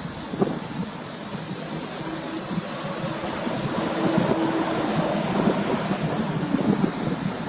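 Subaru Legacy B4 RSK's twin-turbo flat-four running through an aftermarket BLITZ exhaust: a steady low rumble that grows a little louder about four seconds in.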